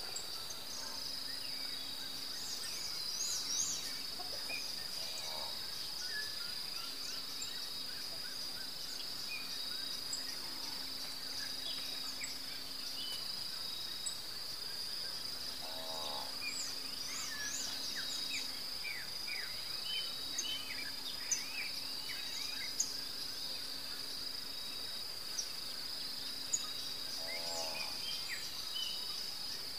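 Evening outdoor ambience: a steady, high-pitched chorus of insects drones on, with scattered bird chirps over it.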